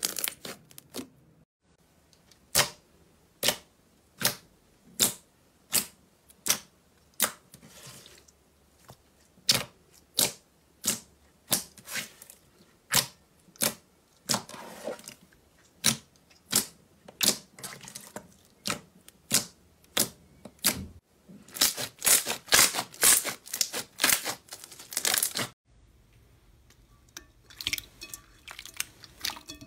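Slime being pressed and squeezed by hand, making sharp wet pops and clicks as trapped air is forced out, about one to two a second. About three quarters of the way through comes a quick, louder run of crackling pops.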